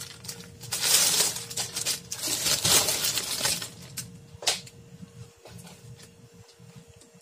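Clear plastic poly bag crinkling and rustling as a pair of pants is pulled out of it, loudest in the first half. A sharp click comes about halfway through, and then only quieter rustling of cloth and plastic.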